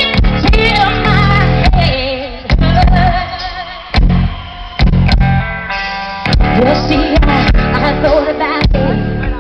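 Live rock band playing, recorded from the crowd: drum hits, electric guitar and bass, with a singer's voice carrying a wavering melody line.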